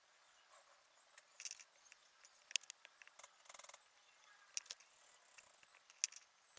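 Sparse small clicks of plastic model-kit parts being handled and fitted together, the sharpest about two and a half seconds in, with a brief rasp a little after.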